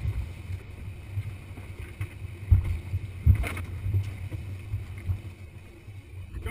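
Twin outboard motors running steadily as the boat trolls, a low rumble with water rushing past the hull. Two heavy thumps come about two and a half and three and a half seconds in.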